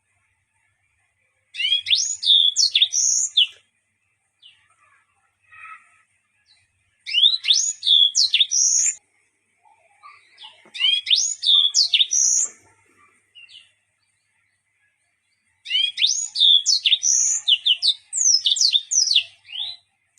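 Yellow-fronted canary (Mozambique canary) singing in four bouts of rapid, high chirps and whistles that sweep up and down, each bout lasting two to four seconds with short pauses between. The song is filled with unusual learned phrases.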